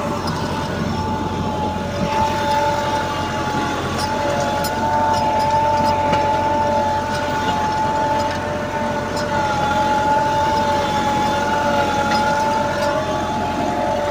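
Massey Ferguson 385 tractor's diesel engine running under load as it pulls a spring-tine cultivator through the soil, with a steady, slightly wavering whine over the engine noise and faint clinks from the tines.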